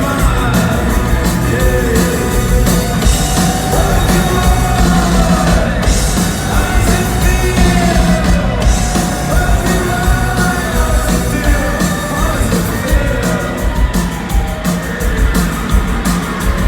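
Live rock band playing loud through a concert PA, with a singer's voice over heavy bass and drums, recorded from the crowd.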